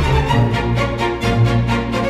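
Instrumental background music: held notes over a low bass line.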